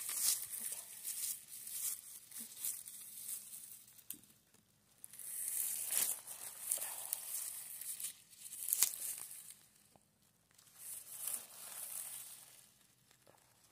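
Dry grass and leaf litter rustling and crackling as a gloved hand parts the grass around a mushroom at ground level. It comes in several short bouts with quieter gaps between them.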